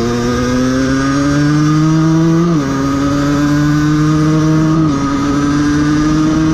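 Aprilia 50cc moped's single-cylinder two-stroke engine pulling under throttle with an aftermarket exhaust, its pitch climbing slowly and dropping sharply about two and a half seconds in, then dipping again near five seconds as the rider shifts up.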